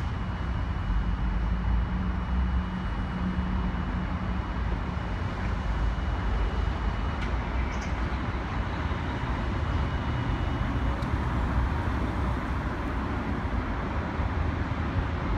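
Steady low rumble of idling fire-apparatus diesel engines mixed with street traffic noise.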